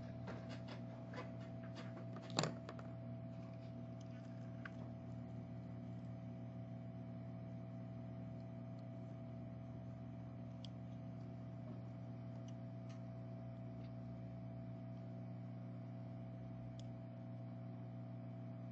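Low steady electrical hum, with a few faint clicks in the first seconds and one sharper click at about two and a half seconds as small tools touch the circuit board during desoldering.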